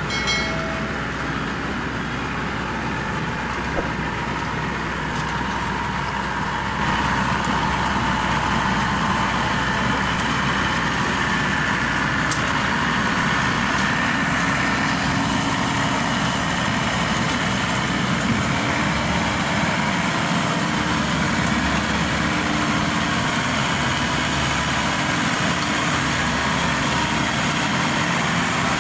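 Maxxi Bimo Evo Xtreme rice combine harvester's diesel engine running steadily as the tracked machine crawls down loading ramps off a tow truck. The engine noise steps up louder about seven seconds in and holds there.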